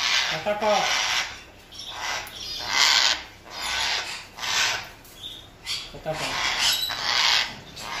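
Hands rubbing and stroking a green Amazon parrot's feathers, a rasping brush in repeated sweeps about once a second.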